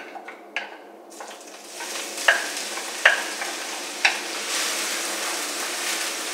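Diced onion dropping into hot olive oil in an enamelled pan, sizzling that starts about a second in and builds to a steady frying hiss. A few sharp clinks come as the ceramic bowl is tipped and scraped over the pan.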